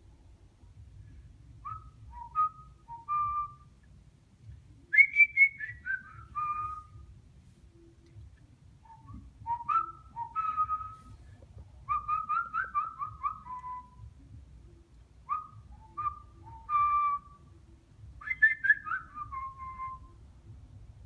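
African grey parrot whistling in six short phrases of clear notes, several of them gliding down in pitch at the end.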